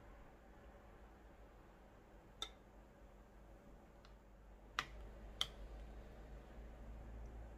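Quiet room tone broken by four short, sharp clicks of tableware being handled: a plate and metal utensils set down on the table and pot. The two loudest come about half a second apart a little after the middle.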